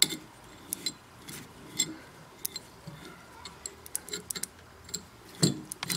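Irregular small metallic clicks and ticks as a threading die in its die holder is turned by hand with a bar, cutting a 10-24 thread on a rod held in the lathe chuck. There is one louder knock near the end.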